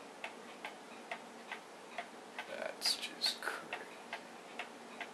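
Scosche gamma radiation detector clicking at irregular intervals, a few clicks a second, with a few louder clicks about three seconds in. It is registering gamma rays from radioactive iodine-131 taken up by tissue in a man's neck, and the count rate is climbing.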